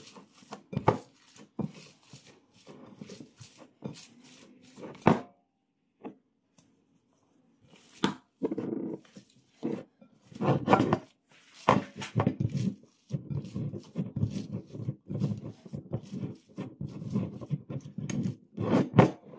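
Hands squeezing and kneading seasoned minced beef in a bowl close to the microphone: irregular wet squelches and slaps, stopping for a couple of seconds about a third of the way in and then going on more densely.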